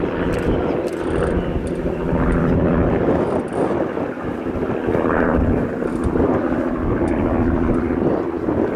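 The Rolls-Royce Griffon V12 piston engine of a Supermarine Spitfire FR Mk.XVIIIe running steadily as the fighter flies past overhead: a loud, continuous engine drone with propeller noise.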